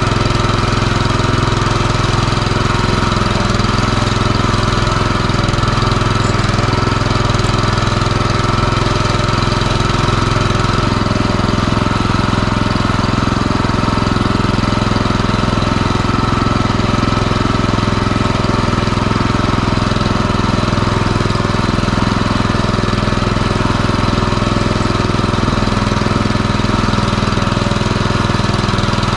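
MTZ-09N walk-behind tractor's single-cylinder petrol engine running steadily as the tractor drives along a dirt track.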